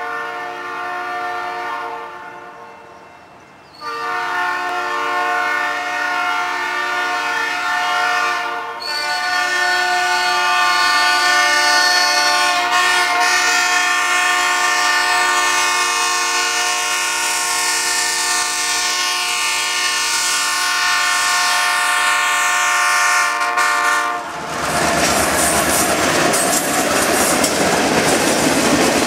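Norfolk Southern GP38-2 locomotive's horn sounding for a grade crossing: a blast of about two seconds, a pause, one of about five seconds, then a long blast of about fifteen seconds. About 24 seconds in, the horn stops and the locomotive and its boxcars pass close by, wheels clacking over the rail joints.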